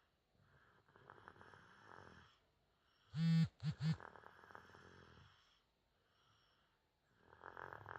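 Loud snoring in slow, raspy breath cycles, with a short, loud, pitched sound about three seconds in, followed by two shorter ones.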